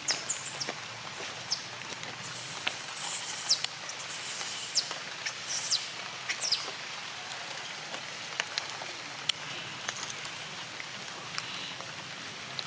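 Outdoor ambience with high-pitched chirping calls from small wild creatures. Several come in the first half, each sliding down in pitch at its end, with scattered faint clicks between them.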